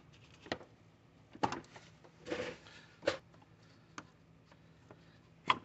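Light, scattered plastic clicks and knocks, with a brief rustle about two seconds in, as gloved hands work the locking clip of a radiator cooling fan's electrical connector to unplug it. The loudest click comes near the end.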